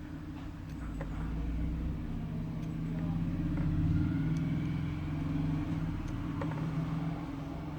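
Low engine hum that swells to its loudest about halfway through and then eases, with a few faint small clicks.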